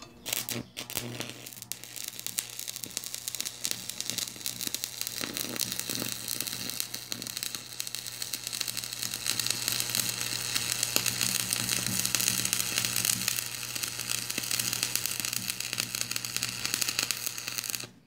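Stick welding with a 2.5 mm coated electrode on thin steel sheet, powered by a transformer welding machine. The arc catches with a few stuttering crackles, then burns with a dense, steady crackle and sizzle over a low hum, and cuts off suddenly at the end.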